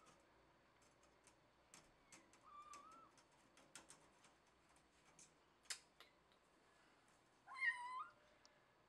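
A cat meowing twice: a short, faint meow about two and a half seconds in and a louder, longer meow near the end, with scattered light clicks in between.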